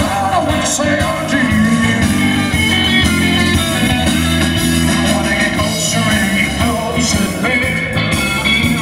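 Live roots band playing a rock-and-roll song, with electric guitar, bass guitar and drums.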